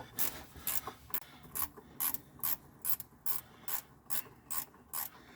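Socket ratchet wrench clicking in a steady rhythm, about two to three clicks a second, as a bolt under the car is backed out.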